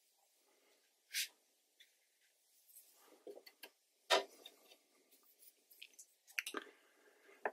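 Faint handling sounds of a watercolour brush on heavy watercolour paper: soft scrapes and light taps, with one sharper tap about four seconds in and a quick run of small taps near the end.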